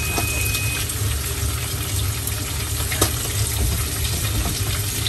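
Steady rushing noise with a low hum beneath it and a thin high tone in the first second; small clicks throughout, the sharpest about three seconds in.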